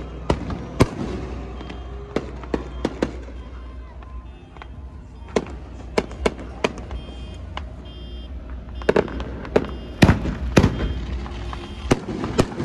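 Fireworks going off: many sharp bangs and cracks at irregular intervals, with a quick cluster of reports from about nine to eleven seconds in.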